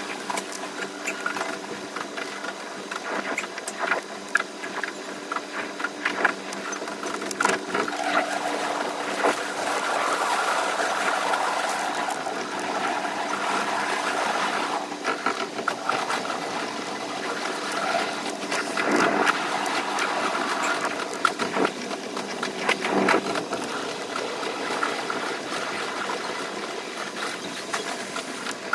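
Running noise of a JR West 283 series limited express train, sped up about five times, so the wheel and rail-joint clicks and body rattles run together into a rapid chatter over a steady hum.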